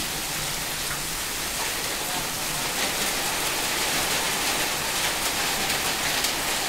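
Heavy rain falling steadily on a corrugated sheet-metal awning and a flooded yard, with individual drops ticking through the steady hiss.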